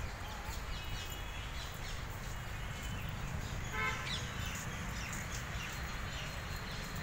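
Outdoor park ambience: scattered bird chirps over a steady low rumble.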